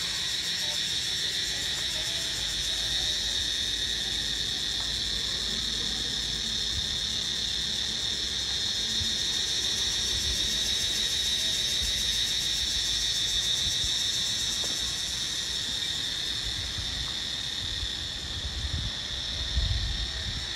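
Steady, high-pitched chorus of insects, an even unbroken drone, with a few low bumps near the end.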